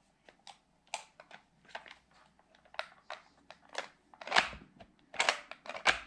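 Hard plastic clicks and knocks from a Play-Doh Cookout Creations toy grill being handled, its lid closed and pressed down. Small clicks come every half second or so, with a louder knock about four seconds in and two more near the end.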